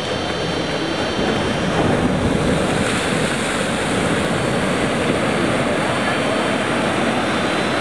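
Steady rush of ocean surf, mixed with wind on the microphone.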